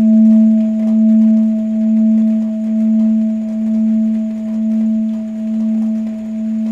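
Tibetan singing bowl ringing on in one long sustained tone with a fainter higher overtone, its loudness throbbing about once a second as it slowly fades.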